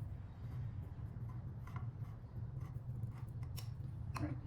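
Small metallic clicks and scrapes of a 2.5 mm screwdriver turning out the screw that holds the folding-latch safety buckle of an electric scooter, several short clicks spread through the second half, over a steady low hum.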